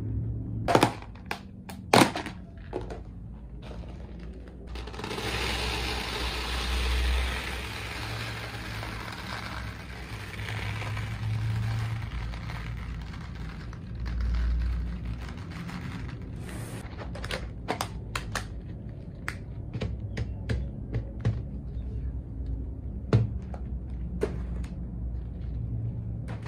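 Plastic pearl beads poured from a plastic bag into a plastic tub, a dense, continuous rattle that runs for about ten seconds. A couple of sharp knocks of plastic containers being set down come before it, and scattered clicks of beads and tub lids after it.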